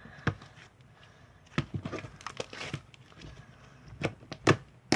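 Stretchy slime being pressed and stretched by hand, giving irregular sharp pops and crackles as air bubbles in it burst, with a cluster in the middle and two louder pops near the end.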